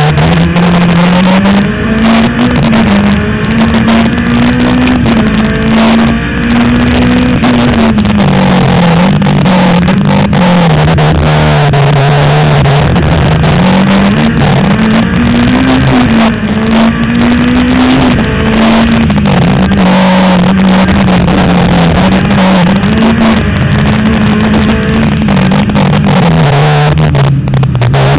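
Superturismo touring car's engine heard from on board at racing speed, its pitch climbing and dropping several times as the car accelerates and slows for corners, over a dense rushing noise.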